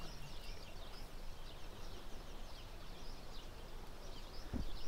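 Small birds chirping, many short high calls repeating throughout, over a low background rumble, with a single soft low thump near the end.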